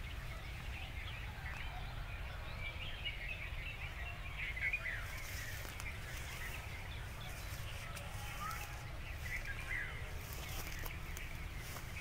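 Bulbuls calling: short chirps scattered throughout, some clustering around the middle and again near the end, over a steady low rumble.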